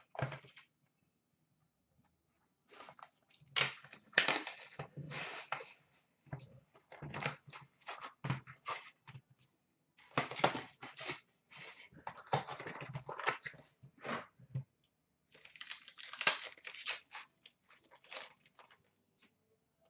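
Upper Deck Credentials hockey card pack wrappers being crinkled and torn open by hand, in irregular bursts of rustling with short pauses between them.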